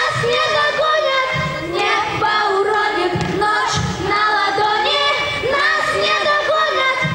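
Two young girls singing live into handheld microphones, their voices gliding between notes, over music with a low beat.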